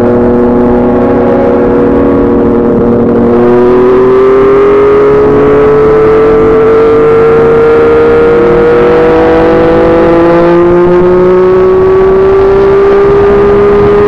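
Yamaha MT-09's three-cylinder engine running through a Yoshimura R55 slip-on exhaust on the move, its note climbing slowly under throttle and getting louder about three and a half seconds in.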